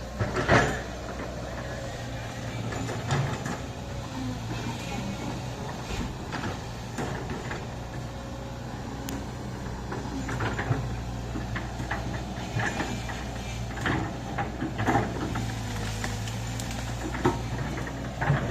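Excavator engine running steadily, with scattered knocks and clanks from the machine working.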